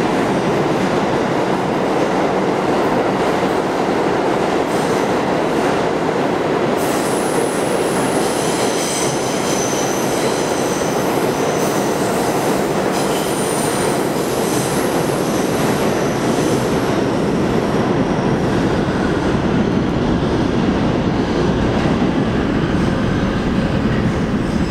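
New York City subway train running through a tunnel with a steady rumble of wheels on rail. About a third of the way in the wheels start squealing in high thin tones, which die away a little past the middle.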